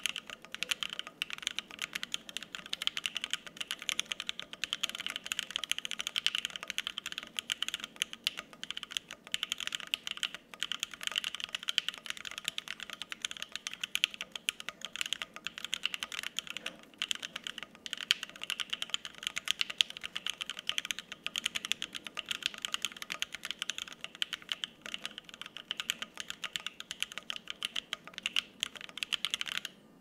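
Continuous typing on a Bear 65% Ergo gasket-mount mechanical keyboard with lubed Alpaca V2 linear switches on an FR-4 plate, no plate or case foam, and double-shot ABS keycaps. A dense, steady stream of key clacks with a few louder strikes.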